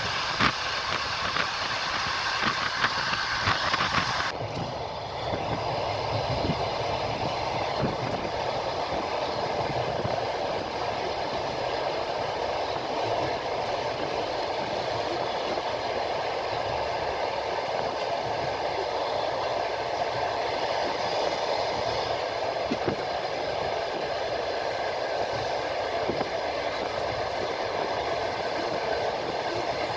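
A moving train heard from aboard: the steady rumble and rolling noise of the wheels on the track, with sharp clicks in the first few seconds. About four seconds in the high hiss drops away suddenly and a steadier, duller rumble carries on.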